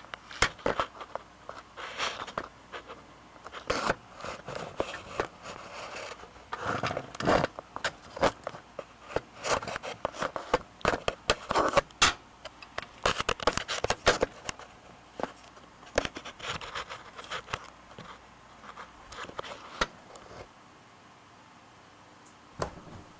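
Clicks, knocks and scrapes of parts being handled as fire alarm equipment is taken apart, irregular and thinning out near the end.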